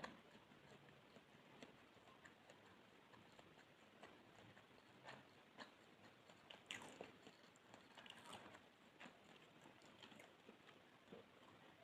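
Soft, close-miked chewing of pandan sponge cake: faint, irregular wet mouth clicks and smacks, busiest a little past the middle.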